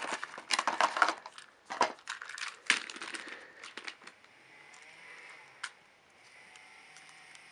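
Toy box packaging, cardboard and plastic, being ripped open by hand: a dense run of crackling and crunching for about four seconds, then a few faint clicks.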